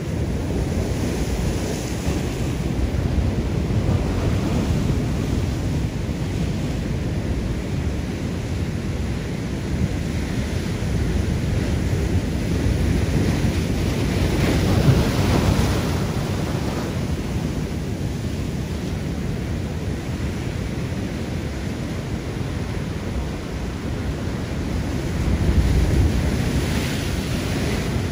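Rough sea surf washing against a rocky shoreline, mixed with wind buffeting the microphone. The surge swells louder about halfway through and again near the end.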